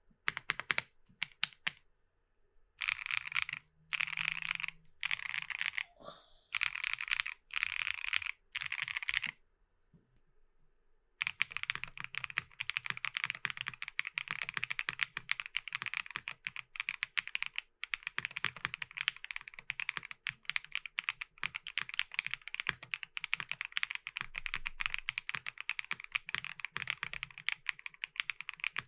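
Nuxros Kraze 65% mechanical keyboard with Keygeek Y2 switches being typed on: a few single keystrokes, then several short bursts of rapid key presses, a pause of about two seconds, and then steady continuous fast typing.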